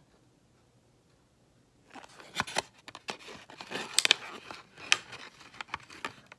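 Thin clear plastic cake tray crinkling and crackling as fingers pry a frosted mini cake out of it: irregular crackles and sharp clicks starting about two seconds in.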